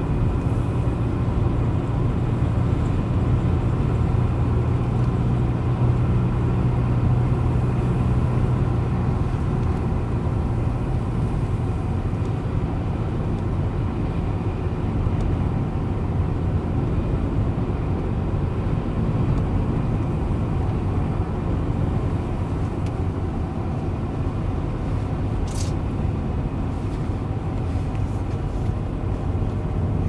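Steady engine and tyre noise of a car driving along a paved road, heard from inside the cabin; a low hum is strongest for the first ten seconds or so, then eases.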